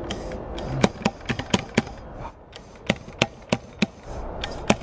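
Repeated sharp clicks, coming irregularly at two to four a second, from the igniter of a homemade combustion bottle blaster that is being clicked over and over without the gas firing: a misfire, which the shooter calls technical difficulties.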